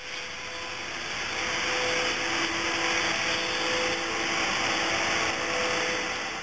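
A steady whooshing machine noise with a faint motor hum underneath, growing louder over the first couple of seconds and then holding.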